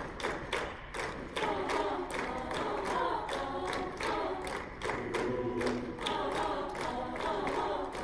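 Mixed choir singing a cappella over a quick, steady beat of sharp percussive hits.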